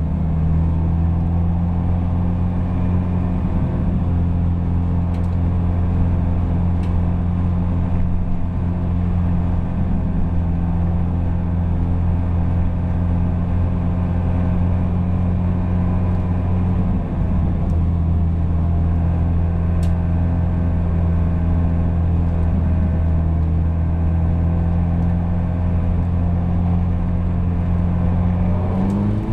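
Opel Kadett GT/E's four-cylinder engine heard from inside the cabin, held at a steady low speed through a 30 km/h zone so the engine note stays almost constant. Right at the end the note starts to rise as the car accelerates.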